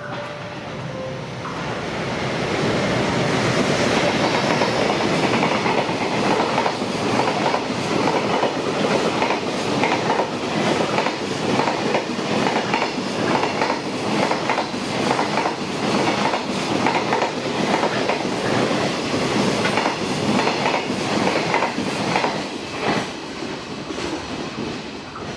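A JR West 681/683-series limited-express electric train passing through a station at speed without stopping. Its running noise swells over the first few seconds and then holds, with a steady rhythm of wheel clacks over the rail joints.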